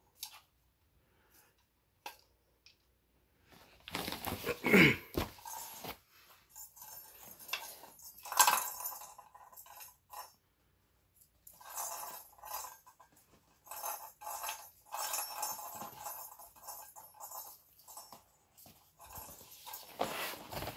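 Plastic roly-poly cat toy rocking and clattering as a kitten bats at it, with the ball inside rattling, in several bursts separated by short pauses.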